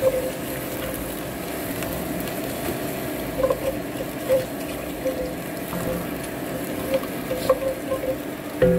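Red wine and onions sizzling and bubbling in an enamelled cast-iron pot while a wooden spatula stirs them, the wine being brought to a boil. Music starts just before the end.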